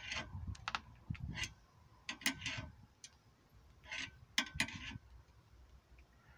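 Scissor car jack being set and cranked under a car's sill: irregular metal clicks and short scraping rasps in several clusters, dying away after about five seconds.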